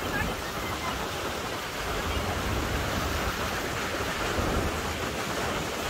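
Steady rushing noise of heavy rain and wind, with wind rumbling on the microphone.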